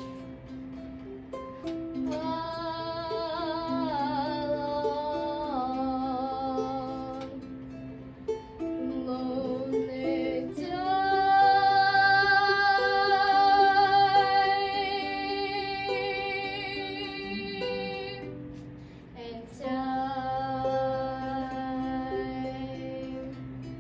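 Young girls singing a slow melody with ukulele strumming beneath. The voices swell on long held notes in the middle, then drop back.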